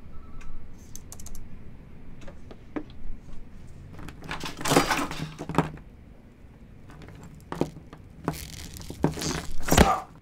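A tangle of cables rustling and clattering as it is pulled out of a table's cable box, in two noisy spells, with a sharp knock near the end.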